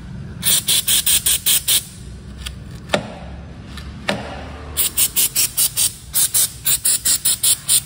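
WD-40 aerosol can sprayed in short, quick squirts onto a motorcycle's footpeg bracket and pedal linkage: a quick run of hissing puffs, a pause with two sharp clicks, then more rapid puffs about three a second.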